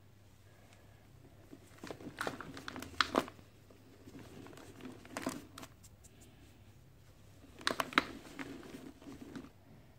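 Dry cement chunks crunching and crumbling in bare hands, with grit and powder falling back into a bucket of cement powder. The crisp crackling comes in bursts, strongest about two to three seconds in and again near eight seconds, with softer crumbling between.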